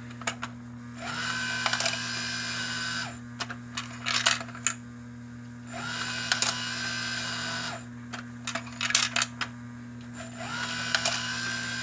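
Model train sounding three long horn blasts, each about two seconds and roughly five seconds apart, with light clicks between them over a steady electrical hum.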